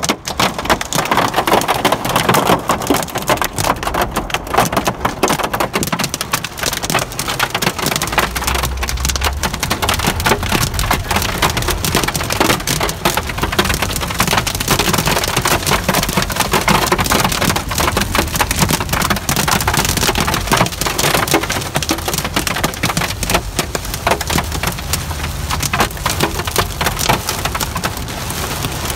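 Heavy rain pelting a car's roof and windscreen, a loud, dense crackle of drops heard from inside the car, with a low rumble underneath from about eight seconds in.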